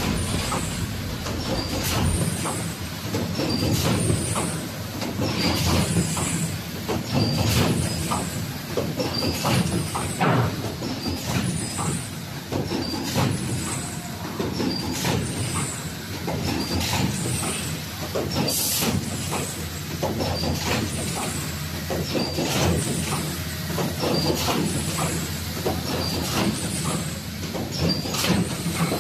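Automatic two-piece folder gluer for corrugated cartons running. A steady machine drone carries clattering knocks and a short high hiss that repeats about once a second as the machine cycles.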